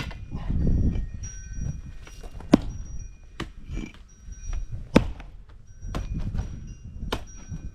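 Single-bit splitting axe striking a firewood round: two sharp knocks about two and a half seconds apart, with lighter knocks of wood in between.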